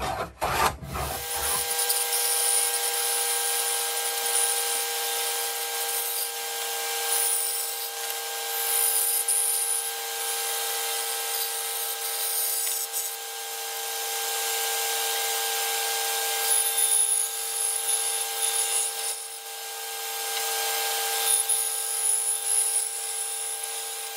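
A bandsaw runs with a steady whine while its blade cuts a piece of oak, the cutting hiss swelling and easing as the wood is fed through. In the first second, a hand plane takes a stroke along the wood just before the saw.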